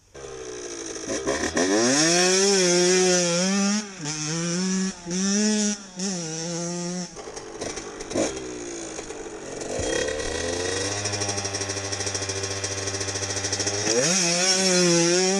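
Enduro motorcycle engine revving under a rider on the move. It climbs in pitch about a second in, then surges up and down with repeated throttle blips, settles to a low, steady idle around ten seconds in, and revs up again near the end.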